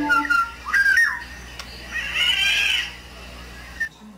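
Black-naped oriole calling: a short whistled note that slides in pitch about a second in, then a longer call that rises and falls, lasting about a second.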